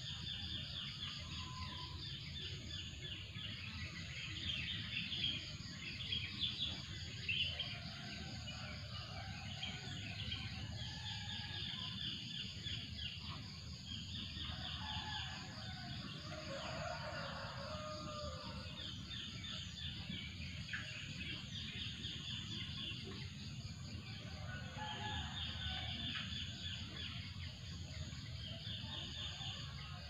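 Wild birds calling in a morning chorus: a rapid high trill repeated every second or two, with lower chirps and calls in between. Under them runs a steady low rumble of background noise.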